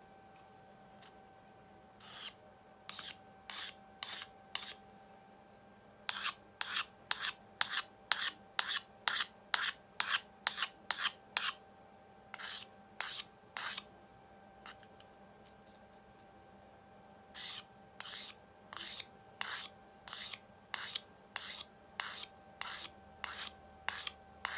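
Lansky guided sharpening kit's 600 grit hone stroked back and forth along a steel blade edge: short, even scraping strokes about one and a half a second, in four runs with brief pauses between them.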